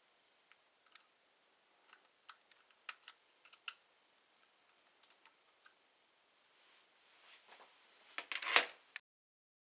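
Light, scattered clicks and taps of hard plastic and small metal parts on a laptop being handled, with a louder cluster of clicks and rattles about eight seconds in; the sound then cuts off abruptly.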